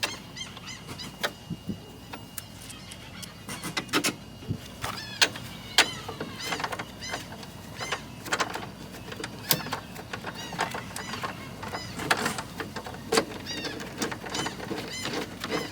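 Hand tools working on the car's strut-top and tower-brace bolts: scattered sharp metallic clicks and knocks. Small birds chirp repeatedly in the background, more often in the second half.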